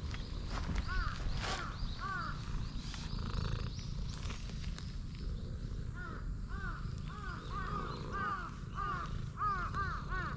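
Stray cat purring loudly while being stroked, a steady low rumble close to the microphone. Birds call over it in quick series of short calls, most thickly in the second half.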